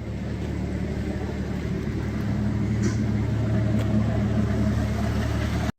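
A car driving, with a steady low engine and road rumble that grows slightly louder and then cuts off suddenly just before the end.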